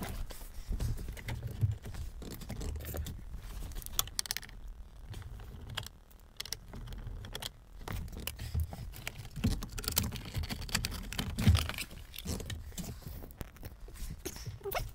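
Irregular clicks, taps and knocks of plastic trim being handled: the steering-column shroud, held only by snap latches, worked apart by hand, with some dull bumps.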